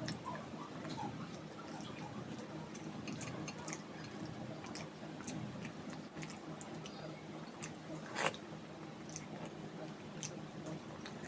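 Close-miked eating of khichdi and egg curry: wet chewing with small, irregular mouth clicks and smacks over a low steady background hum, and one sharper click about eight seconds in.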